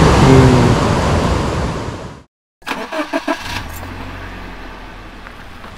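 Mountain stream rushing loudly, cut off sharply about two seconds in; after the cut, a much quieter steady low hum with a few short clicks.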